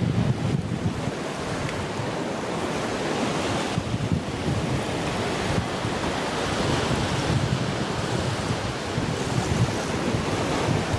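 Ocean surf washing onto a beach, a steady hiss of water, with wind buffeting the microphone in gusts, strongest near the start and the end.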